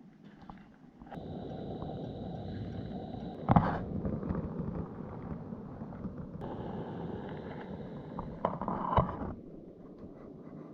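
Two long rushes of blown air, each about two to three seconds with a faint whistling tone, ending in a short sharp puff, like someone blowing hard into a campfire to bring up the flames.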